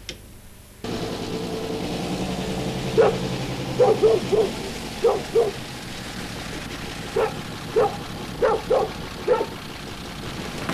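A dog barking about a dozen times in small groups over the steady low running of an old car's engine as the car drives slowly up. The engine sound starts suddenly about a second in.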